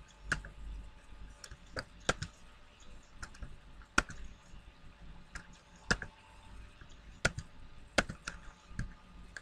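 Computer keyboard being typed on slowly, with separate, irregularly spaced keystrokes as a short captcha code is entered.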